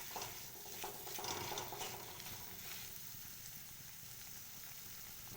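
Mawa (khoya) frying in ghee in a kadhai, sizzling softly while a spoon stirs and scrapes it around the pan.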